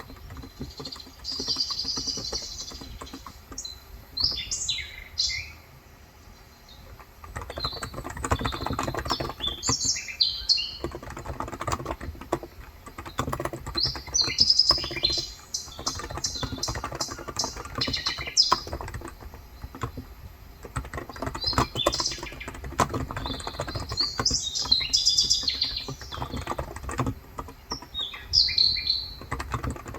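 Typing on a Cox Endeavour tenkeyless keyboard with 35 g electrostatic capacitive switches, keys clacking in fast runs with short pauses. Birds chirp in short high phrases over it again and again.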